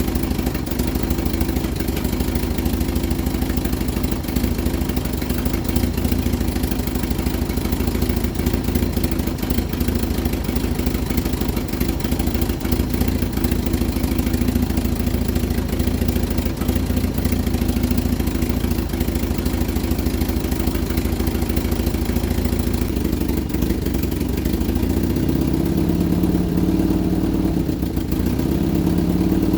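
Vauxhall Viva HC engine idling with a rough mechanical clatter that does not sound happy, a noise the owner suspects comes from a slipped guard plate in the gearbox. In the last few seconds the revs rise, dip briefly, then rise again.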